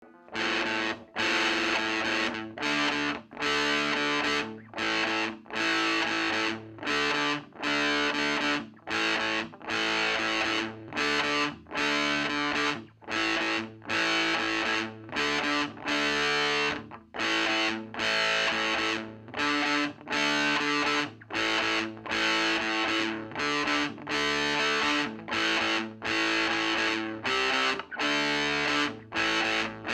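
Electric guitar played through the overdrive channel of an Ever Play RG60 solid-state 2x12 combo amp: distorted chords in a steady rhythm, each one cut short with a brief gap about once a second.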